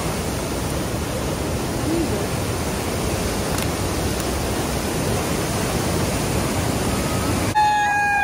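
White-water mountain river rushing over rocks: a loud, steady wash of water noise. Near the end it cuts off abruptly and music begins with a held, wavering note.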